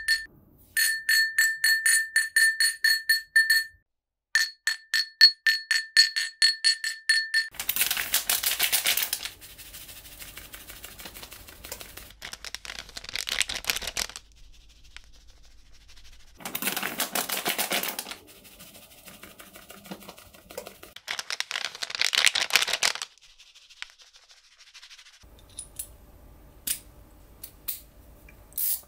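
A fast run of ringing metallic clicks, with a short break about four seconds in, gives way to several bursts of hissing, rushing noise lasting a second or two each. A few sharp clicks come near the end.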